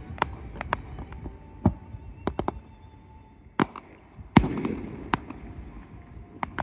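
Aerial fireworks bursting overhead: a string of sharp, irregular bangs and cracks, the loudest about four seconds in, followed by a rolling rumble.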